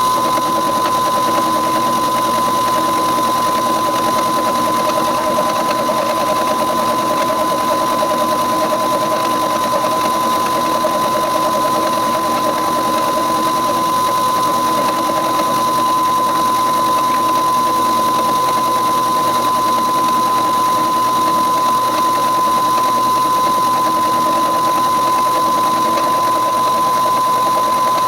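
Milling machine driving a slitting saw through half-inch-thick steel: a steady machine whine with one strong high tone, unbroken.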